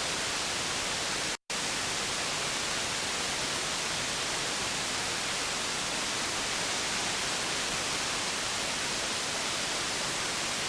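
Radio receiver hissing with steady static, the band full of hash and trash with no station coming through. The hiss cuts out to silence for an instant about one and a half seconds in.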